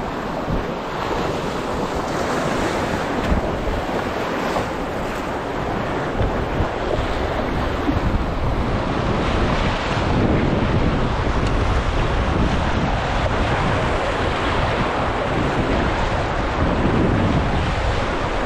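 Swift, choppy river water rushing around an open canoe running a rapid, with wind buffeting the microphone. The rush gets louder about halfway through.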